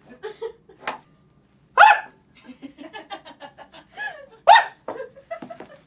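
A man making short, bark-like yelps, two of them loud, with faint quick clicking in between.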